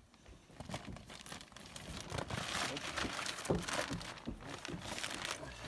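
Clear plastic fish-transport bag crinkling and rustling as it is handled and worked open by hand, quiet at first and getting busier and louder about two seconds in.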